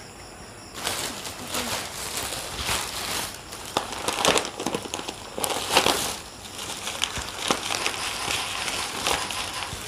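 Thin plastic shopping bag rustling and crinkling as a hand rummages inside it, starting about a second in and going on in irregular crackles.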